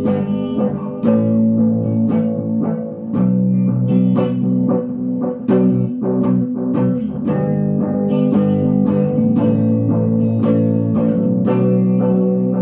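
Electric guitar played through a solid-state Fender Ecco-Fonic echo unit: a run of sharply plucked notes over sustained low notes.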